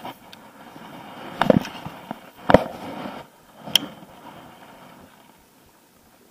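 Handling noise from a baitcasting rod and reel in a small aluminium boat: rustling and a few dull knocks, then a sharp click about three and a half seconds in as the rod is swung out to cast.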